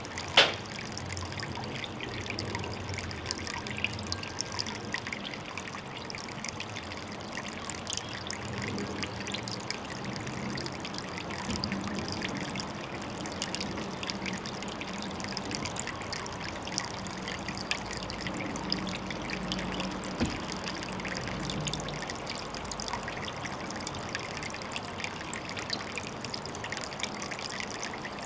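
Water trickling and splashing steadily into a pond, a dense patter of small drips and splashes. A sharp click about half a second in and a faint low drone in the middle stretch.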